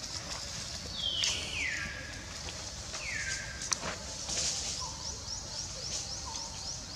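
Birds calling: two clear whistles that slide down in pitch, about one and three seconds in, a few short lower notes later, and a fast run of high chirps through the second half, over a few light clicks.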